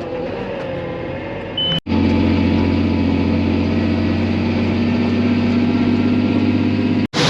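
Farm tractor engine running steadily with a deep, even drone. It is broken by two abrupt cuts, about two seconds in and near the end, and is louder after the first cut.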